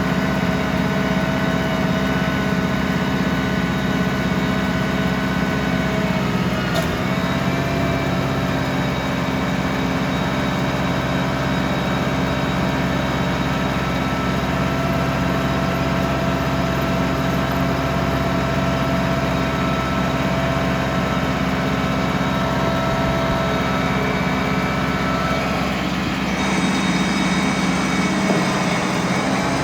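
Ford 6610 tractor's diesel engine running at a steady speed, with a brief dip in pitch about seven seconds in.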